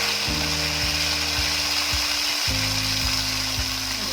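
Peas and mushrooms sizzling as they fry in hot refined oil in a kadhai, a steady hissing. Background music with held chords and a light beat plays under it.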